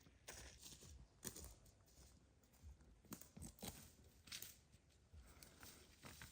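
Faint, irregular rustling and crinkling, with a few short crackles each second.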